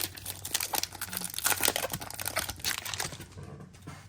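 Foil wrapper of a Pokémon trading card booster pack crinkling and tearing as it is ripped open by hand, the crackling thinning out near the end.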